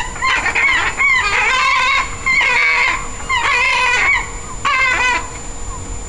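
Herring gulls calling loudly during an aggressive squabble, a rapid run of harsh repeated yelps in several overlapping bursts that stop about five seconds in.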